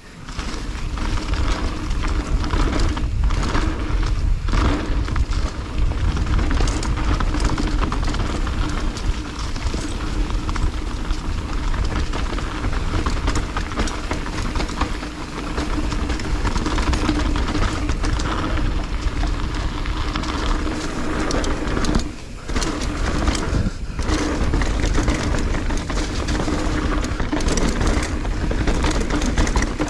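Wind rushing over a handlebar-mounted action camera's microphone, mixed with mountain bike tyres rolling over dirt and leaves on a fast singletrack descent. It lets up briefly twice, about three quarters of the way through.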